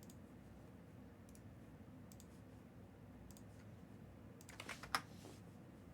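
Quiet room tone with a few scattered faint clicks, then a quick run of sharper computer keyboard keystrokes about five seconds in.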